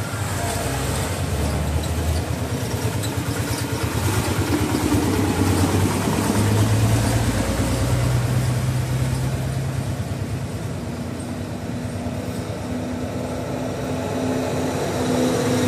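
A motor vehicle engine running steadily. Its pitch rises a little in the middle and then eases off, with a steadier, higher hum taking over in the last few seconds.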